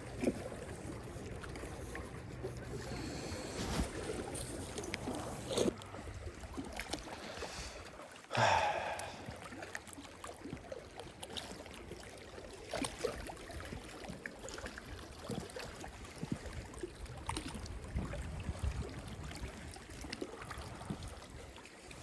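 Lake water lapping against shoreline rocks, with scattered small knocks and scrapes and one louder rush about eight seconds in.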